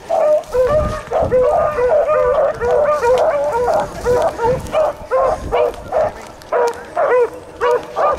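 Beagle hounds giving tongue on a rabbit's scent: a steady run of short, pitched barks, about four a second, with more than one hound's voice overlapping.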